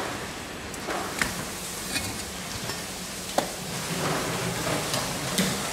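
A large knife filleting a mahi-mahi on a plastic cutting board: a few scattered sharp knocks and taps of blade and fish against the board over a steady background hiss.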